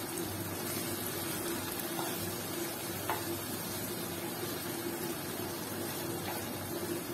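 Thick fish curry simmering and sizzling softly in a nonstick frying pan as its sauce reduces to oil. A plastic spatula stirs it gently, with a couple of faint scrapes. A steady low hum runs underneath.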